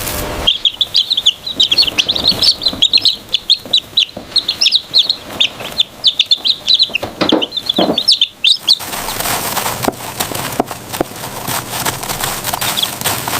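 Many young chicks peeping in a dense chorus of rapid high chirps. After about nine seconds this gives way to a noisier, fuller sound with only scattered peeps.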